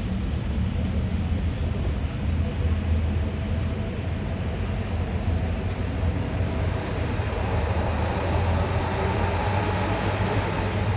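Large bus's diesel engine running with a steady low rumble.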